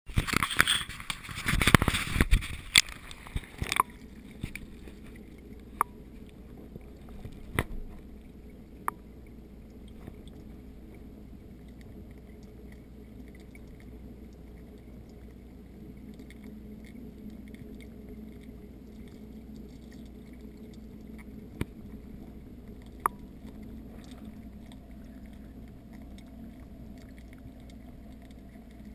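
An action camera being dipped into a goldfish tank, with loud splashing and knocking for the first few seconds. It settles into the steady, muffled underwater noise of the tank as bubbles rise, broken by a few sharp clicks.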